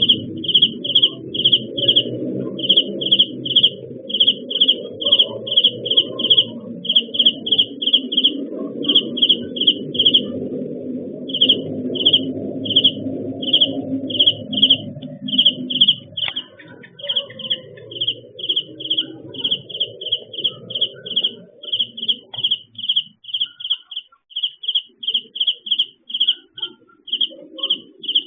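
A long run of short, identical high-pitched chirps, about three or four a second in uneven runs with brief pauses, over a low rumble that fades out about two-thirds of the way through.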